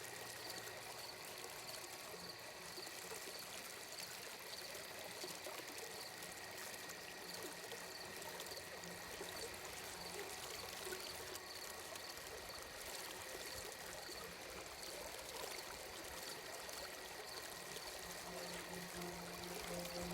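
Ambient sleep soundscape of gently flowing, trickling water, with faint steady tones underneath and a soft high note pulsing at an even pace throughout.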